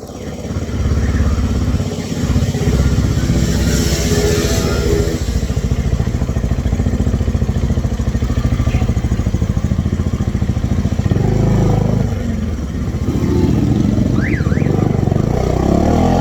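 Bajaj Dominar 400 UG motorcycle's single-cylinder engine running with a steady, rapid beat. Its note rises a few seconds in and changes again near the end.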